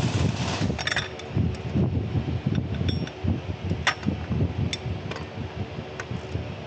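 A few sharp metallic clicks and clinks, the loudest about four seconds in, over a low, uneven rumble, typical of hand tools being worked on an engine.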